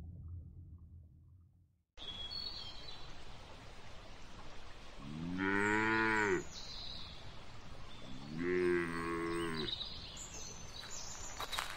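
A low hum fades out to silence, then over faint outdoor background noise a cow moos twice, each call about a second and a half long, the first about three seconds after the silence and the second a few seconds later.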